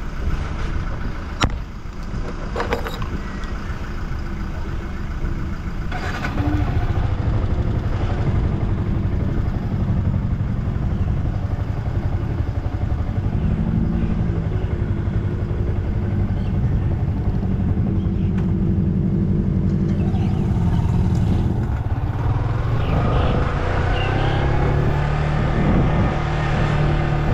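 Yamaha M-Slaz motorcycle's single-cylinder engine running under way, with wind and road noise. It gets louder about six seconds in, then rises and falls in pitch several times.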